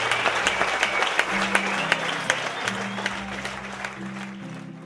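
Audience applauding, the clapping thinning out and fading toward the end, while music with low held notes comes in about a second in.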